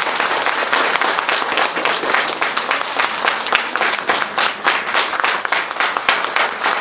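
Audience applauding loudly, many hands clapping without a break.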